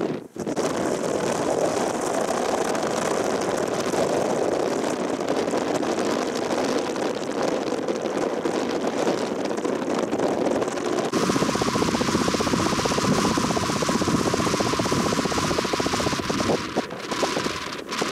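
Wind rushing and buffeting on the camera microphone, a loud, steady noise that changes character abruptly about eleven seconds in.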